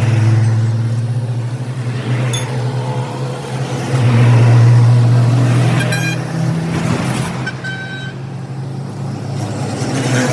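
An engine running steadily with a low hum, with a few light clinks about six and seven and a half seconds in.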